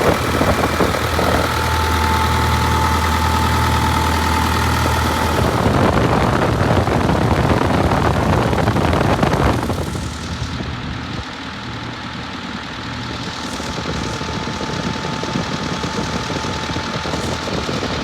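Case CX240B excavator's Isuzu diesel engine running. A louder, rougher stretch in the middle gives way about ten seconds in to a quieter, steady idle with a faint held tone.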